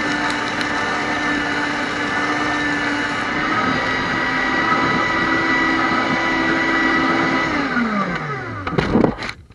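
Electric CD shredder running, its motor humming steadily under the rattle of shredded pieces. About three-quarters of the way through, the motor is switched off and winds down with a falling pitch, followed by a few sharp knocks.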